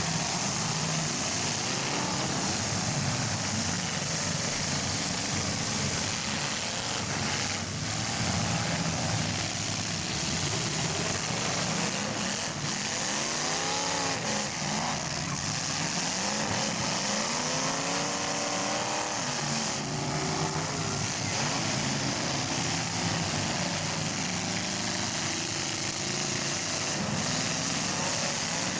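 Several full-size cars' engines revving up and falling back over one another in a demolition derby heat, with a few knocks of cars hitting.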